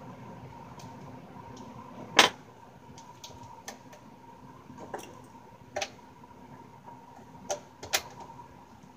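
Sharp metal clicks and taps from a screwdriver working screws out of a Yamaha THR10X guitar amp's casing: one loud clack about two seconds in, then lighter clicks every second or so, over a faint steady hum.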